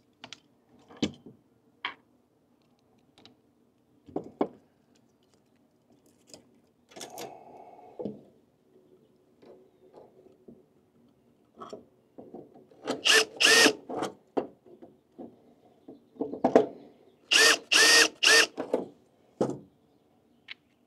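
Cordless drill/driver running in several short bursts as it drives the screws that mount a new contactor in an air conditioner's control panel, after a few scattered clicks and knocks of parts being handled.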